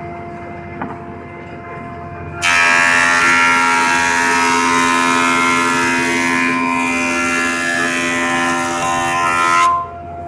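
MP410A combined planer thicknesser running with a steady hum. About two and a half seconds in, a board meets the cutterhead and a much louder cutting noise with a whine runs for about seven seconds. It stops sharply near the end, leaving the hum.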